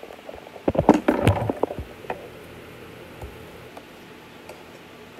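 Handling knocks and clicks as a phone camera is picked up, moved and set down on a table, a quick flurry for about a second, followed by quiet room tone.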